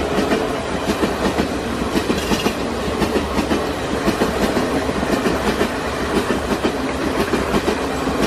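Sound of a running railway train: a steady clickety-clack of wheels over the rail joints, with a continuous rumble.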